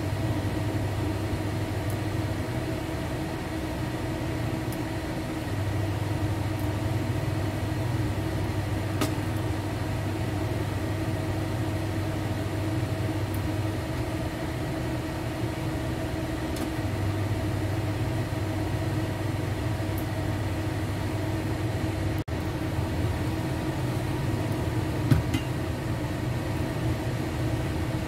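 Kitchen range hood (smoke extractor) fan running with a steady, continuous hum, with a single sharp tick near the end.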